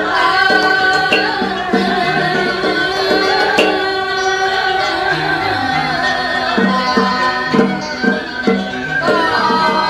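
Vietnamese traditional ceremonial music for a Cao Đài funeral rite: a sustained, wavering melody over regular percussion strokes, which come thicker in the second half.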